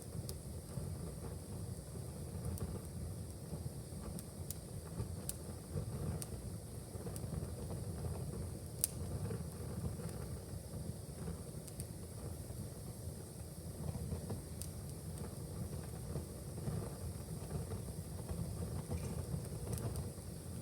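Wood fire burning in a fireplace: a steady low rumble of the flames with scattered sharp crackles and pops, one louder pop about nine seconds in.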